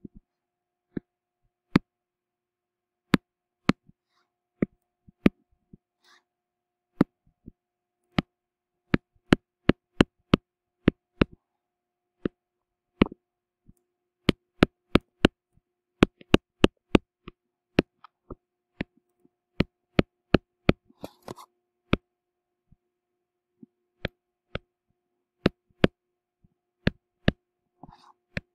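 Sharp, irregular clicks and taps, a stylus striking a tablet screen as equations are handwritten, coming in clusters of up to two or three a second with short pauses between. A faint steady hum sits underneath.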